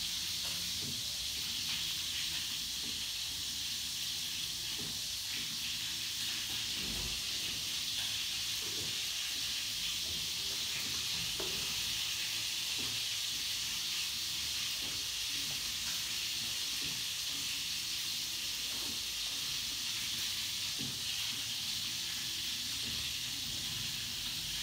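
A steady high hiss, even and unchanging, with faint soft knocks now and then.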